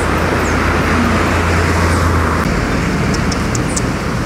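Road traffic: a passing motor vehicle's steady engine rumble and tyre noise, which drops away about two and a half seconds in.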